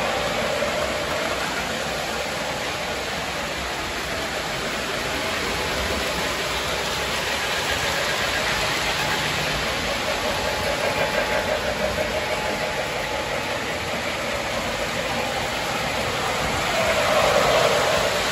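Model trains running: a steady whir of electric motors and wheels rolling on metal track, swelling near the end as a train passes close.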